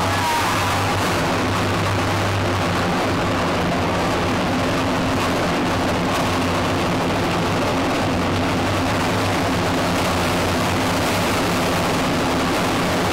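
Armoured personnel carrier's diesel engine running loud and steady, heard from inside the troop compartment, with a low droning hum under dense mechanical noise.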